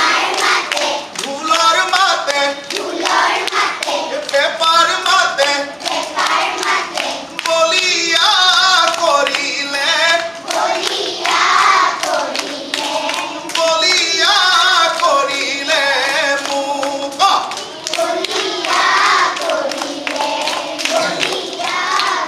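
Several voices singing a Bihu folk song together, kept in time by steady rhythmic hand clapping.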